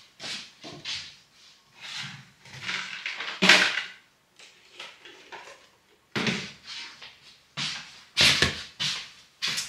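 Kitchen clatter: a series of short knocks and rattles as cupboards are opened and dishes moved, then a plastic bowl set down on a tiled countertop about eight seconds in.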